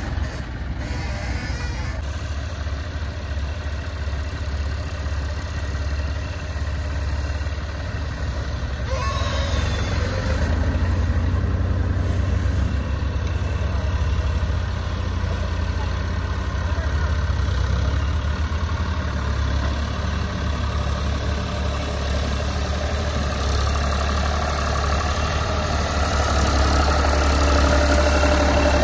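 Diesel tractor engines running steadily: the John Deere tractor working its front loader and the Ford 3600 turbo standing by with its trolley. The engines get a little louder about ten seconds in and again near the end, and a brief rush of noise comes about nine seconds in.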